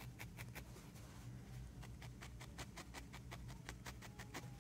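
Barbed felting needle stabbing rapidly in and out of wool: faint quick pokes, about six a second, with a brief pause about a second in.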